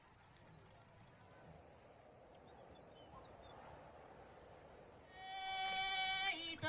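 Faint hiss, then about five seconds in a voice starts singing, holding one long steady note that shifts pitch near the end: the opening of a chanted song.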